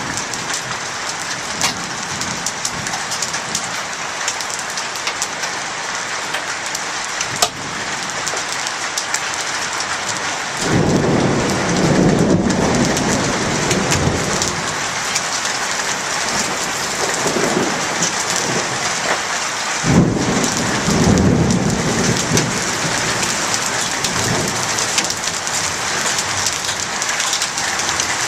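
Heavy rain pouring down steadily in a thunderstorm, with thunder rumbling about ten seconds in and again about twenty seconds in.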